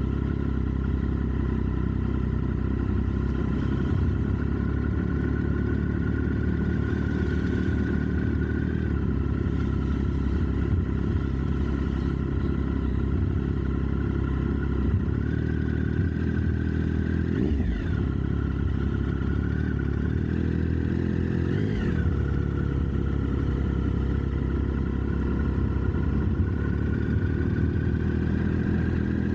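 Triumph Speed Triple's three-cylinder engine running steadily, with two quick changes in pitch about two-thirds of the way through.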